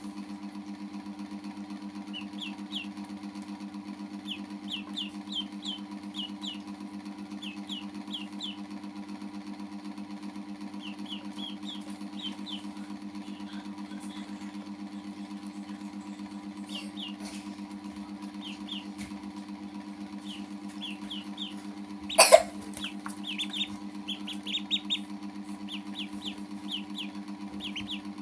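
Ducklings peeping: short rising chirps in quick clusters of two to five, repeated throughout. A steady low hum runs underneath, and one sharp knock stands out about two-thirds of the way through.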